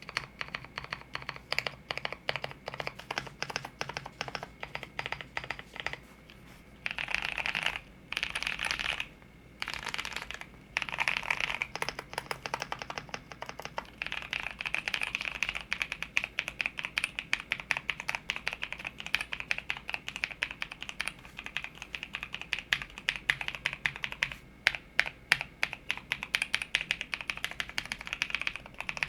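Typing on a custom 60% mechanical keyboard with Novelkeys x Kailh Blueberry tactile switches, a carbon fiber plate, an aluminum case and Cherry profile keycaps: a steady run of irregular keystroke clacks, with a few short bursts of very fast typing.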